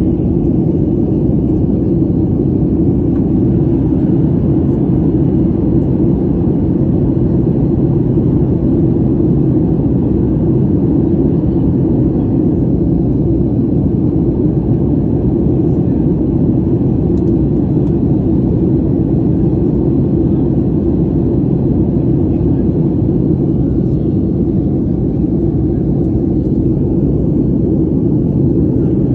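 Steady, even rumble of a Boeing 737 jet airliner's engines and airflow heard inside the passenger cabin while the plane climbs after takeoff.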